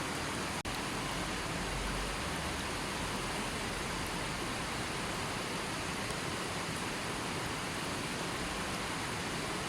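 River water flowing steadily, an even rushing hiss with no birds or music. Under a second in there is a brief click-like dropout.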